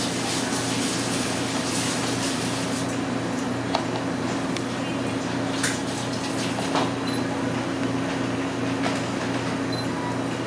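Steady low machine hum with a hiss of room noise, and a few faint light clicks in the middle.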